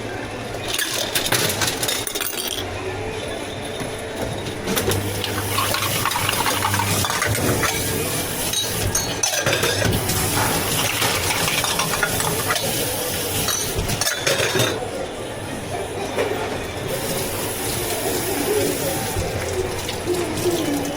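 Cups, utensils and containers clinking and clattering at a tea shop counter during drink making, with stirring and some pouring.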